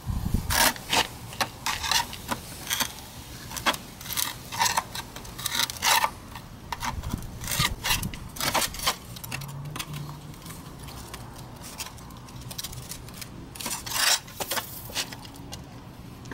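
Steel scooter muffler shell being pried apart along its cut seam with a screwdriver: irregular sharp metallic clinks, clanks and scrapes, with a dull knock at the start.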